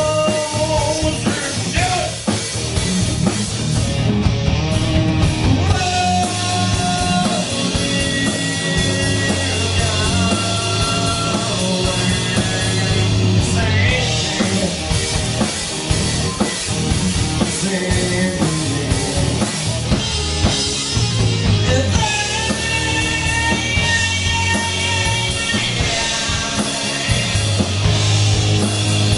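Live rock band playing a grunge song: electric guitar, bass and drum kit, with singing at times.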